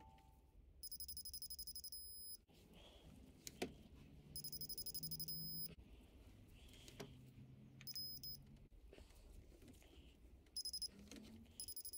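Craftsman digital torque wrench beeping in short bursts of fast pulses, about five times, as cylinder head bolts are each turned 90 degrees, with a few single clicks from its ratchet head between the bursts.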